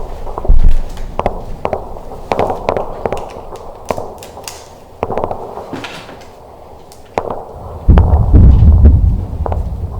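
Scattered sharp pops of airsoft gunfire at an irregular pace. There are heavy low thumps and rumbles just after the start and again for about a second and a half near the end.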